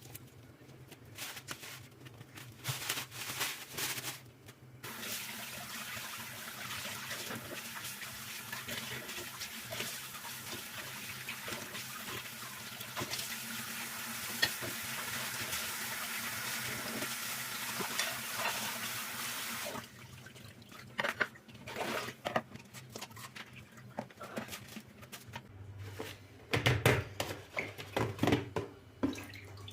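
A water tap running steadily for about fifteen seconds, then shut off suddenly. Light clicks and clatter of items being handled come before it, and louder knocks near the end.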